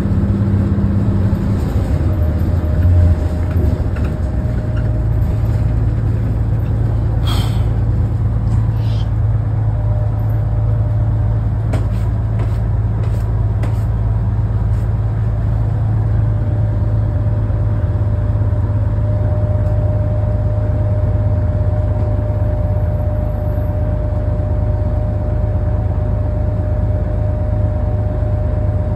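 Interior of a 1975 AM General city bus under way: a steady low running hum and rumble with a faint whine above it. About seven seconds in comes a short sharp hiss, and a few light clicks and rattles follow a few seconds later.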